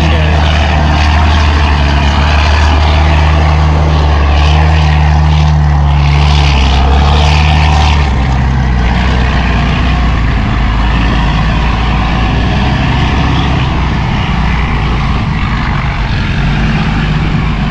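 Laden ten-wheel dump truck's diesel engine running hard as the truck crawls over wet dirt, a loud, steady low drone. About eight seconds in, the engine note steps down lower and holds there.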